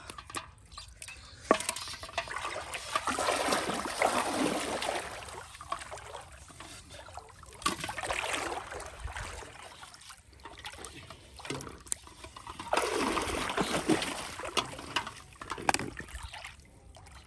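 Pond water splashing and trickling in three main bursts, with scattered sharp clicks between them.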